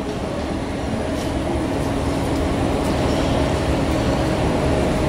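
Steady low rumble and hum of factory machinery, with a few faint steady tones running through it.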